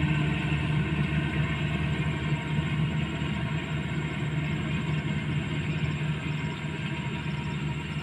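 Kubota DC-35 combine harvester running steadily, its engine hum carrying several steady tones, easing off slightly near the end.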